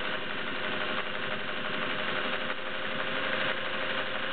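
Vintage Singer 403A Slant-o-matic sewing machine, all-metal and gear driven, sewing at a steady speed with an even motor hum, stitching a test seam after a tension adjustment.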